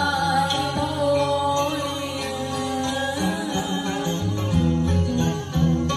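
Vietnamese karaoke song played loud through a home karaoke loudspeaker system: a backing track with a steady bass line, and a man singing into a microphone.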